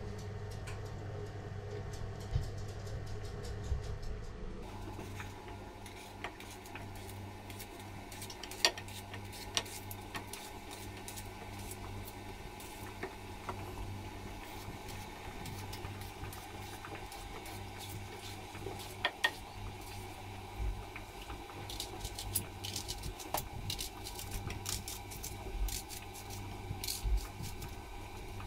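Kitchen knife slicing bell pepper and onion, with the pieces set down in a glass baking dish: scattered light clicks and taps, some louder than others.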